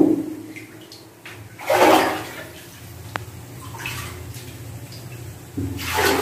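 Shallow water splashing in separate surges about two seconds apart, as feet step through it on the concrete tank floor, with one sharp click near the middle.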